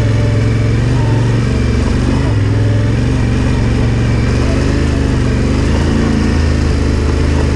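Yamaha Ténéré 700's parallel-twin engine running steadily under way, its pitch shifting slightly a few times.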